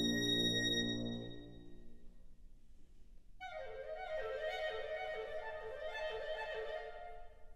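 Wind band playing concert music. A loud, full sustained chord fades out over the first two seconds, there is a brief pause, and then a soft sustained chord of several held notes enters about three and a half seconds in.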